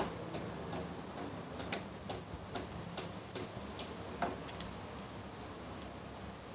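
A series of sharp, irregular clicks, roughly two or three a second, stopping a little after two-thirds of the way through, over a faint steady background hiss.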